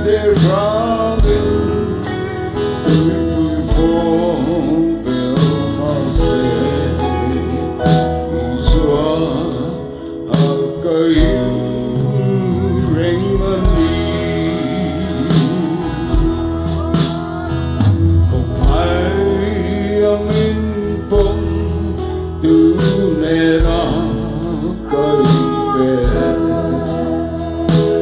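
A man singing a Mizo gospel song into a microphone over instrumental accompaniment with guitar and a steady beat.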